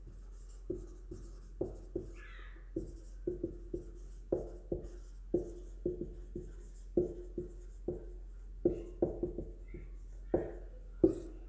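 Felt-tip marker writing on a whiteboard: a run of irregular taps and strokes, about two a second, with a brief squeak about two seconds in.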